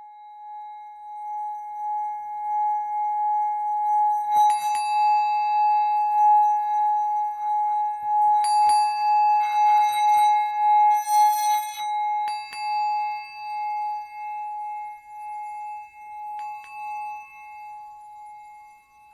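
Singing bowl holding one steady ringing tone that pulses gently in loudness, with higher bell-like strikes about every four seconds and a brief cluster of shimmering high chimes a little past the middle.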